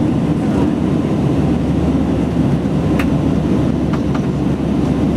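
Steady cabin noise inside an Airbus A319 airliner in flight shortly after take-off: the low, even rush of its engines and airflow. A couple of faint clicks sound about three and four seconds in.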